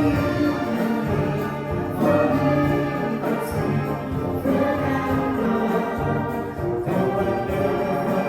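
Navy wind band playing, brass to the fore, sustained chords that change about every two seconds.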